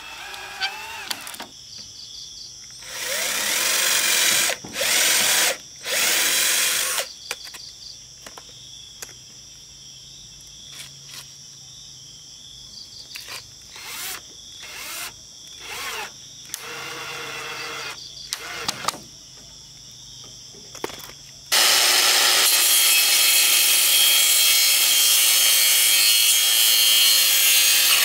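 Cordless drill driving screws into bamboo in several short bursts that spin up and stop, then an angle grinder with a toothed saw blade cutting bamboo, loud and steady, for the last six seconds. Insects chirr steadily in the background.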